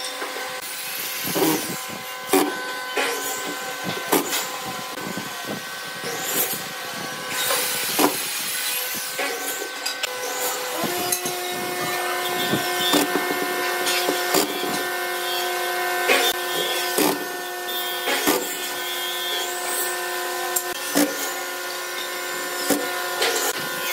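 Makita cordless drill driving screws through caster mounting plates into wood. Knocks and clicks of the casters and screws being handled come first, then from about halfway the drill motor runs steadily, with scattered clicks.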